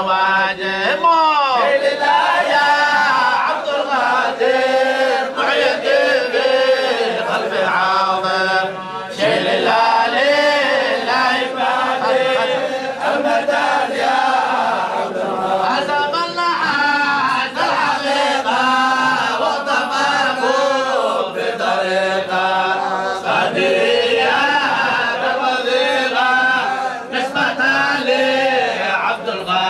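A group of men chanting a Sufi qasida, a devotional Arabic song, together in unison, the voices rising and falling continuously with a brief dip near the middle.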